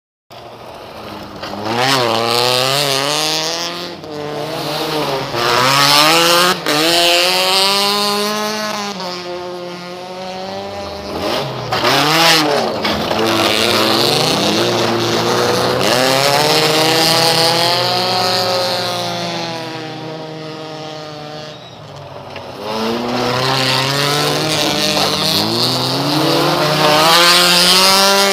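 Petrol-engined sedan race cars on a dirt circuit, one after another, their engines revving hard and dropping back as they power through a corner. The engine pitch climbs and falls again and again, with several loud passes.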